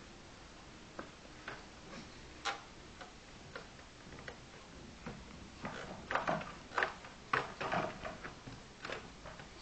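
Light clicks and knocks from a toddler handling wooden furniture. They come at about two a second at first, then turn quicker and louder in the second half.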